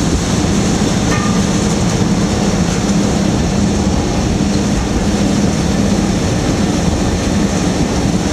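Bucket wheel excavator's electric machinery running: a steady, loud mechanical rumble with a low hum underneath.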